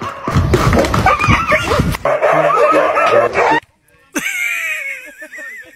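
Dogs barking and yelping. After a brief break, a long wavering whine comes near the end.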